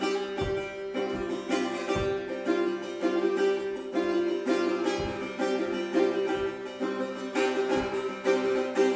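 Solo setar (Persian long-necked lute) played with the fingernail: a fast, continuous run of plucked notes over a steady ringing low drone.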